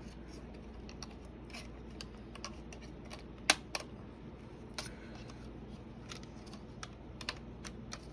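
Scattered, irregular small plastic clicks and ticks as a thin blade pries the plastic keyboard bezel of a Dell Latitude E5470 laptop loose, the sharpest click about three and a half seconds in.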